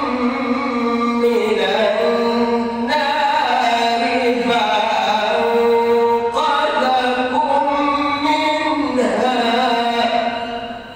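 A man reciting the Quran in a slow, melodic chant: long held notes with ornamented glides between pitches. The phrase ends and the voice dies away near the end.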